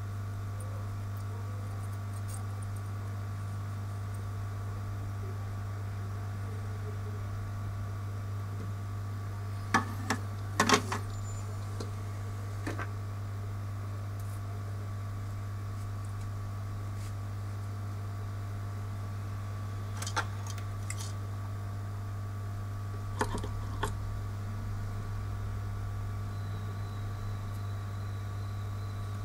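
Steady low electrical hum from bench equipment, with a few sharp clicks and taps of small tools during a phone repair, most of them in a cluster about ten seconds in and a pair about twenty and twenty-three seconds in.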